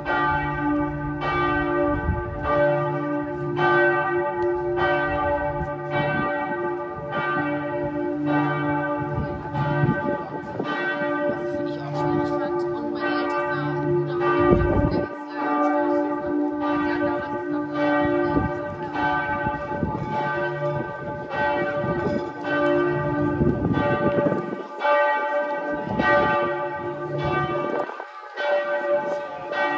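Church bells ringing in a continuous peal, fresh strokes coming about once a second over several overlapping ringing tones.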